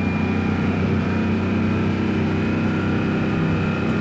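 Bus engine running, a steady drone heard from inside the cabin.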